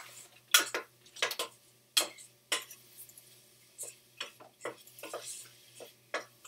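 Wooden spoon knocking and scraping against a stainless steel saucepan as mushrooms are stirred while sautéing, a series of irregular clicks and knocks.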